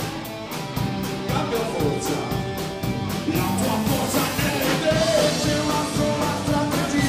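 Rock band playing live: electric guitars, bass guitar and drum kit keeping a steady beat, with a singer's voice over the band.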